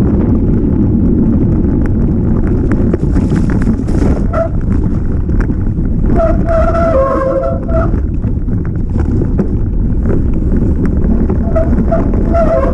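Mountain bike descending a rough trail: heavy wind rumble on the microphone and a constant rattle of small knocks from the bike. Twice there is a brief steady squeal, about six seconds in and again near the end, typical of disc brakes being applied.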